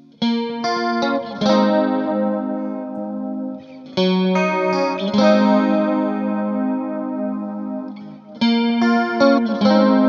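Electric guitar played through a chorus pedal: chords struck and left to ring with the chorus effect, with new phrases starting about four and eight and a half seconds in.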